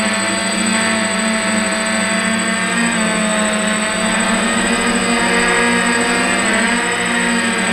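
DJI F550 hexacopter's six electric motors and propellers buzzing steadily in flight, heard close up from a camera on the frame, the pitch wavering slightly as it turns. A thin, steady high whine sits above the buzz.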